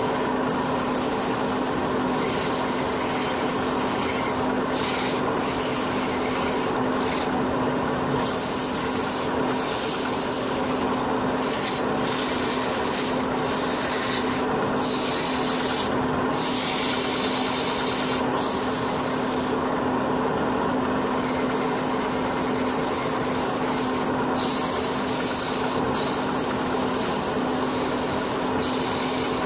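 Wooden workpiece spinning on a motor-driven wood lathe while being hand-sanded: a continuous rubbing hiss of abrasive on wood over the lathe's steady hum. The hiss briefly eases at irregular moments every second or two, as the pressure on the wood lets up.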